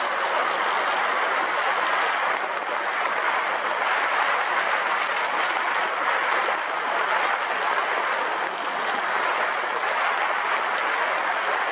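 An ATV on the move: a steady, even noise of riding with no distinct engine note and no changes.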